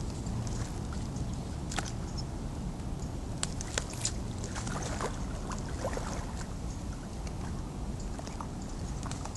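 Pond water sloshing and splashing with scattered light clicks and rustles as a tangled cormorant is worked free of fishing line and weeds, over a steady low rumble.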